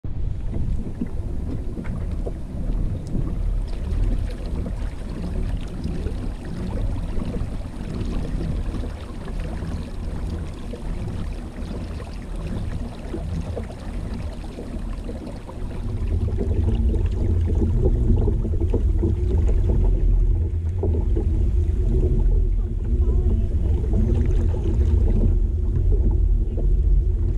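Kayak under way on a lake: water moving along the hull, with a steady low rumble of wind on the microphone, growing louder a little past halfway.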